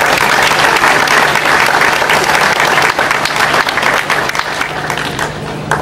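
Audience applauding for a graduate, a dense spread of many hands clapping that thins out a little toward the end.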